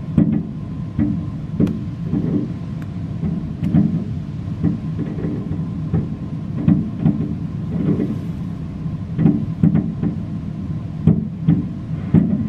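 Fireworks bursting: an irregular run of booms and pops, sometimes several a second, over a steady low rumble.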